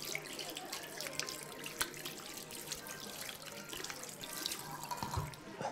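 Water running from a tap into a sink, with splashing and dripping.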